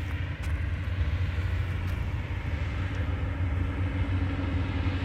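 Steady low outdoor rumble with no clear single source, even in level.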